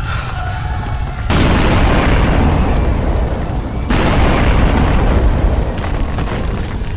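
Two explosion-like booms from a sound-design effects track, about two and a half seconds apart, each starting suddenly and dying away, over a steady low rumble.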